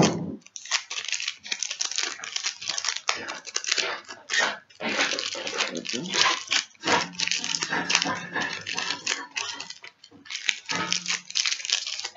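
Pokémon booster packs being shuffled and handled: a continuous run of crinkling, rustling foil wrappers.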